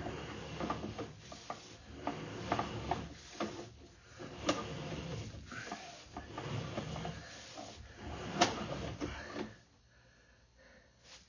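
Sewer inspection camera's push cable being fed through a cast iron drain pipe: irregular rubbing and scraping with scattered sharp clicks and knocks, going quiet briefly near the end.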